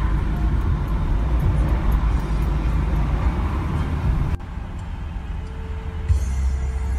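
Road noise from a car driving in traffic, a steady low rumble. About four seconds in it cuts off abruptly to a quieter stretch, and music begins near the end.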